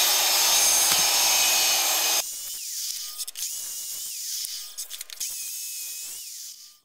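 Mitre saw cutting through a glued-up blank of African hardwood and ash, a loud steady cutting noise over the motor's whine. About two seconds in it drops abruptly to a quieter saw whine that rises and falls twice, with a few clicks, and fades out at the end.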